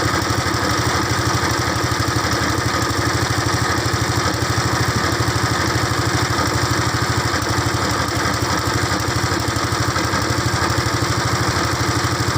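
A small engine running steadily at a constant speed with a fast, even throb.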